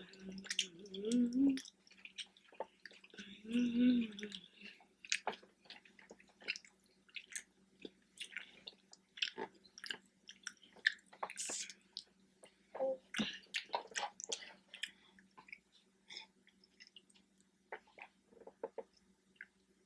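Close-miked eating of saucy rotini pasta: soft wet chewing with many short mouth smacks and clicks. A couple of brief hummed "mm" sounds come in the first few seconds.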